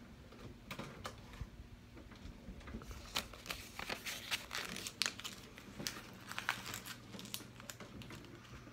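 A printed sheet of paper being crumpled in the hand close to the microphone: a run of sharp crinkles that grows much busier about three seconds in.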